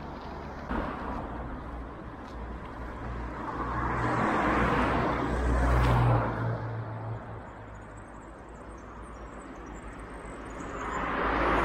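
Street traffic: a car passes, swelling to its loudest about six seconds in and fading away, and another car approaches near the end.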